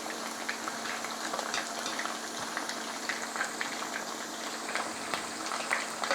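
Small pieces of chicken thigh shallow-frying in hot oil in a pan: a steady sizzle with many small pops and crackles, over a faint steady hum.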